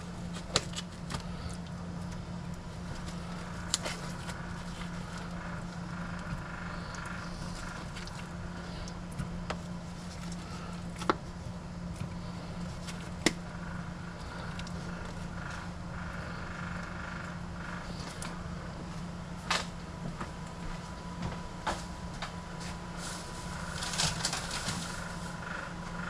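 Steady low hum of a room air conditioner, with scattered sharp clicks and taps from a food package and dish being handled while chicken goes into a slow cooker, and a short rustle near the end.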